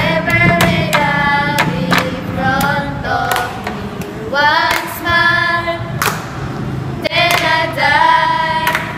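A group of young women singing a song together in unison, with sharp handclaps at an irregular pace of roughly two a second.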